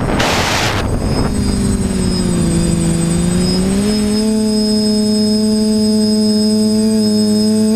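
Quadcopter motors and propellers humming as it flies, the pitch dipping and then rising to a steady tone about four seconds in. Wind buffets the onboard microphone during the first second.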